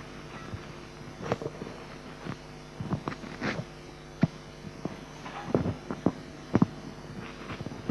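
Steady electrical hum of a room's sound system, with scattered soft knocks and shuffles.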